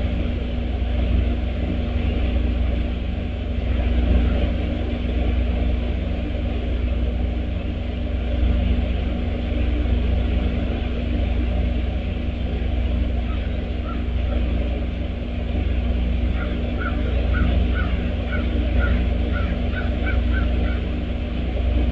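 A bird calling in a quick series of short, evenly repeated notes, about two or three a second, starting just past the middle and lasting several seconds. Under it runs a steady low rumble of outdoor background noise.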